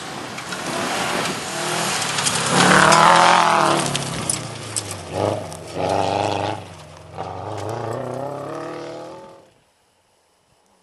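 Subaru Impreza rally car at full throttle on a gravel stage, its engine revving up and dropping back several times through gear changes and lifts, loudest as it passes about three seconds in. The sound cuts off abruptly near the end.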